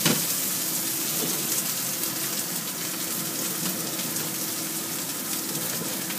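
Egg noodle cake frying in oil in a wok, a steady sizzling hiss. A single sharp knock comes right at the start, as the wok is handled on the hob.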